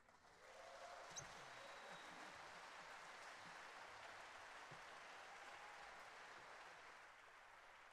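Faint audience applause, building within the first second and then holding steady.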